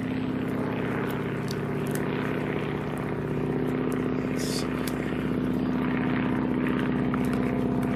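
Low-flying propeller airplane passing over, its engine a steady drone at a fixed pitch that grows slightly louder toward the end. Light snaps of dry punkwood being broken by hand sound now and then.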